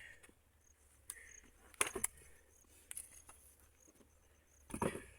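Knocks and scrapes of stones being handled: a sharp double knock about two seconds in and a heavier thud near the end.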